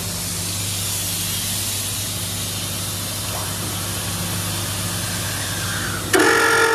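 Truck trailer's suspension being let down through its valve: a steady hiss over the truck's engine running low underneath. About six seconds in a loud squeal starts, slowly falling in pitch.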